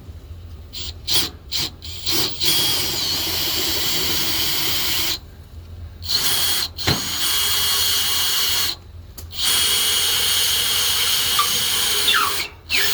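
Power drill running in three long runs of a few seconds each, separated by brief pauses, with short trigger blips near the start and end: drilling a hole through for a mounting bolt.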